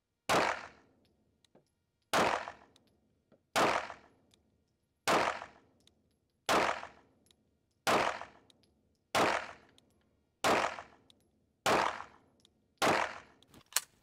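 B&T USW-P striker-fired 9mm pistol firing ten shots at a slow, even pace, about one every 1.3 to 1.5 seconds, each shot echoing briefly off the walls of an indoor range. A brief sharp click follows just before the end.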